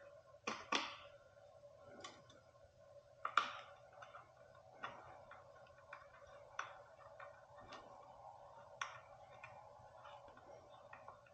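Faint, scattered clicks and taps of small metal parts being handled: a bolt and washer being fitted by hand through a fender stay on an e-bike's front fork. The loudest clicks come near the start and about three seconds in, over a faint steady hum.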